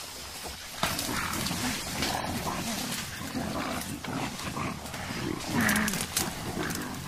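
Mountain gorillas vocalizing in a series of short, low calls with scattered clicks, and one louder call about six seconds in.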